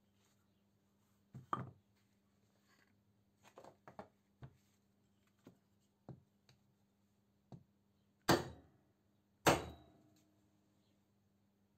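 Light knocks and clicks of metal parts being handled, then two louder metal knocks about a second apart near the end, the second ringing briefly.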